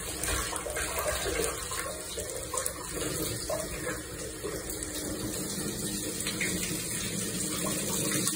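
Handheld shower head running steadily, its spray of water rinsing a wet tabby cat's fur and splashing onto the tub floor.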